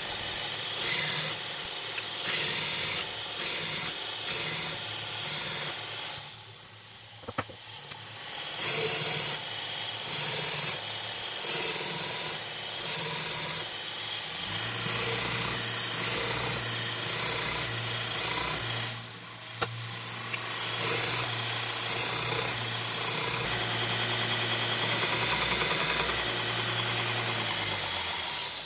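Grinder with an 80-grit abrasive cleaning the faces of 80CrV2 steel pieces: a loud rasping hiss in short repeated passes. There is a quieter break with a few sharp clicks near the middle. Later comes a long steady pass with a low motor hum under it.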